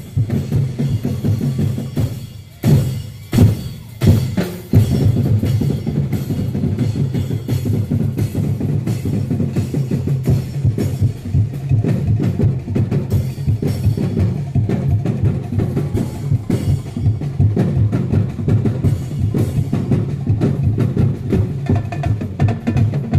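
Drum-driven music for street dancing: bass drum and snare beating steadily. About two seconds in, the steady beat breaks for a few separate loud hits, then resumes.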